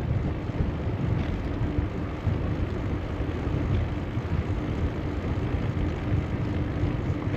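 Wind buffeting the microphone of a moving bicycle ride, a steady low rumble with a faint steady hum under it.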